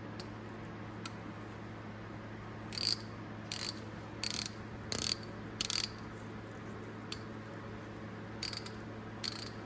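Old Snap-on hand ratchet being worked back and forth in short bursts of rapid pawl clicking, about seven in all with a pause partway. The mechanism is freshly oiled, and the owner suspects the oil isn't performing well in it because it is not a fine-tooth ratchet.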